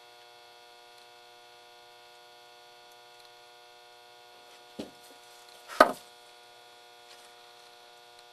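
Steady electrical mains hum, with two sharp knocks about five and six seconds in, the second much louder, as the soldered circuit board is handled and lifted off the bench.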